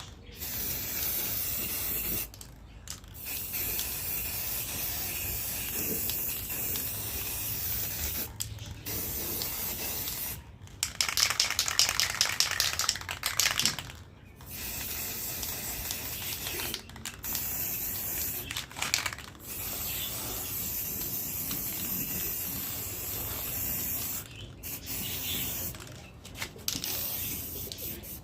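Aerosol spray paint can hissing in long sprays separated by short pauses. About halfway through the can is shaken for a few seconds, its mixing ball rattling, before spraying resumes.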